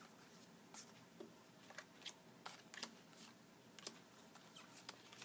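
Faint, irregular light clicks and rustles of Pokémon trading cards being handled and stacked.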